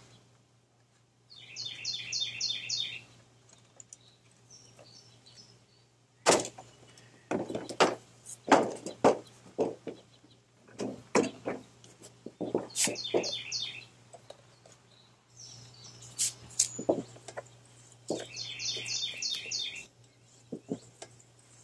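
Knocks and thumps of a walk-behind lawn mower being handled and tipped onto its side on a metal drip pan, in a cluster from about six to twelve seconds in and again around sixteen seconds. A songbird sings a short rapid run of repeated high notes three times.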